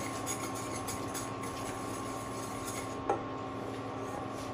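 Metal balloon whisk stirring in a stainless steel saucepan, with faint light clinks of wire against the pan, as dry caramel is deglazed with orange juice. One light knock about three seconds in.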